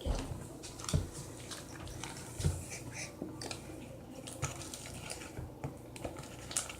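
Slime being stirred in a container: faint wet squishing with a few soft knocks, the loudest near the start and about a second and two and a half seconds in.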